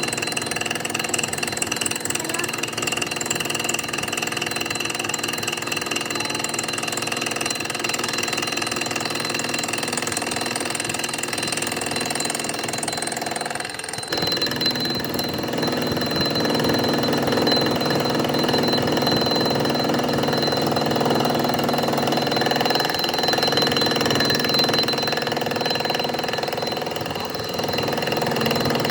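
A workshop machine tool runs steadily with a thin, high whine over a steady mechanical hum. About halfway through the sound changes abruptly and gets a little louder.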